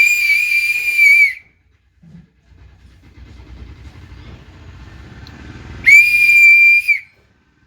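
A whistle blown in two long blasts, each a steady high tone lasting about a second and a half, the second coming about six seconds after the first.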